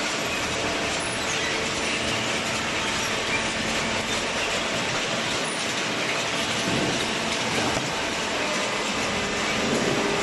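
Baler machine running: a steady mechanical noise with a few faint steady hum tones underneath.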